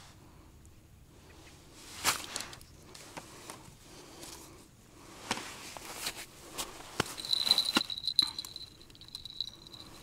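Boots crunching on snow-covered ice and hands handling a winter tip-up at an ice hole: scattered crunches and small plastic clicks, busiest in the second half. A thin, steady high tone sounds for about two and a half seconds near the end.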